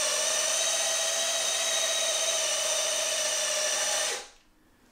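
Electric drill-driver running at one steady speed with an even whine, stopping suddenly about four seconds in, while it undoes the crash-bar bolts on a BMW R1200GS.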